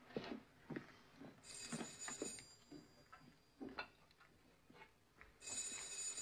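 Faint room sound: scattered light clicks and knocks as people move about a table. Two stretches of high hiss with a thin ringing tone, each about a second long, come about a second and a half in and again near the end.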